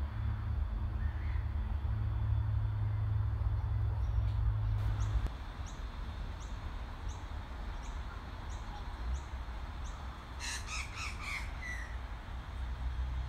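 A bird gives a quick series of harsh, squawking calls near the end, after a run of short high chirps repeating about twice a second. Under them is a low rumble, louder in the first five seconds and then dropping away.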